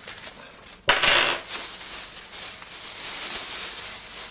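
Clear plastic bag rustling and crinkling as an all-metal slingshot is pulled out of it, with one sharp metallic clink about a second in.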